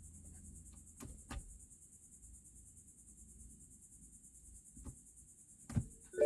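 Quiet car cabin with a steady high-pitched hiss and a few short soft clicks as the ignition is switched on, the loudest click near the end.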